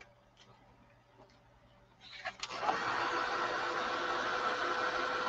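Craft heat tool switched on about two seconds in and running steadily, a blowing fan noise with a faint hum in it, drying freshly stamped ink on paper. Before it starts, a few faint taps.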